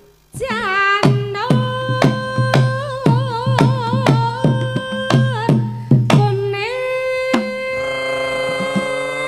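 Javanese female singer holding long notes with vibrato over a steady hand-drum beat. The drumming stops about six seconds in while she holds one long note.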